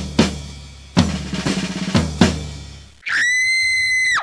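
Drum beat with sharp kick and snare hits about once a second, some in quick pairs, each dying away. About three seconds in the drums stop and a high, steady tone takes over for just over a second.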